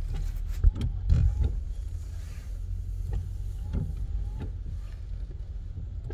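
Toyota Avalon's windshield wipers sweeping the rain-wet windshield, giving irregular short knocks and squeaks, over the low steady hum of the idling car heard from inside the cabin.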